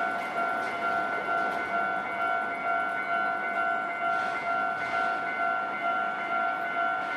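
Japanese railway level-crossing warning bell ringing steadily, a repeated two-tone clang at about two strokes a second, over continuous background noise.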